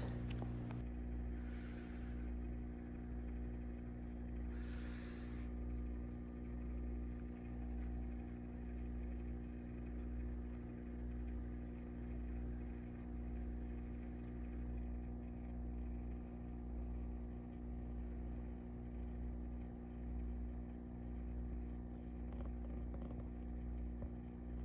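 Steady low hum of running aquarium equipment, made of several steady tones and swelling gently about every two seconds. Two brief soft hisses come about two and five seconds in.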